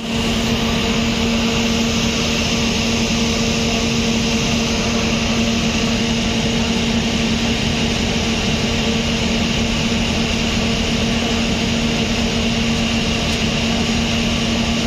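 Generator engine running steadily, a constant drone with a steady hum and a fast low throb underneath.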